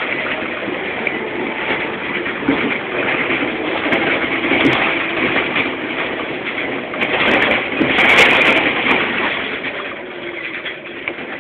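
Cabin noise of a Scania OmniCity bus on the move: engine and road noise, with knocks and rattles that peak about eight seconds in, then quieter near the end.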